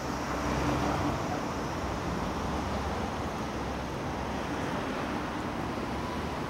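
Steady outdoor street ambience: a rushing noise of wind on the microphone and distant traffic, with a faint engine hum, slightly louder about a second in.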